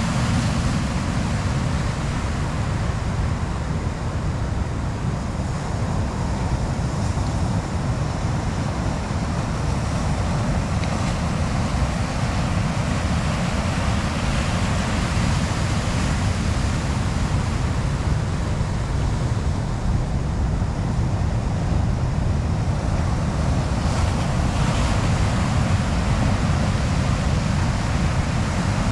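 Ocean surf breaking and washing over a boulder beach in a steady rush, with wind rumbling on the microphone.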